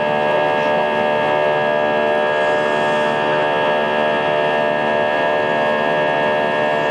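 Airbus A320's IAE V2500 turbofan engine heard from inside the cabin at climb power shortly after takeoff: a steady drone made of many held tones that does not change.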